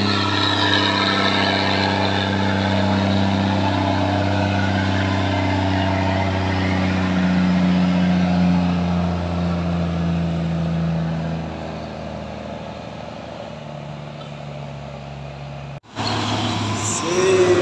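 Diesel engine of a heavy multi-axle cargo truck pulling up a hill as it passes close by, a steady low engine note that sags slightly in pitch and then fades as the truck draws away. Near the end the sound cuts abruptly to another heavy vehicle's engine.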